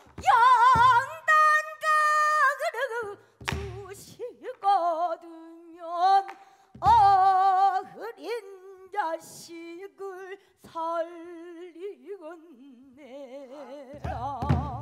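Female pansori singer singing in the sorrowful gyemyeon mode, holding long notes with wide, heavy vibrato. A barrel drum (buk) marks the rhythm with occasional low strokes: about a second in, twice mid-passage, and a cluster near the end.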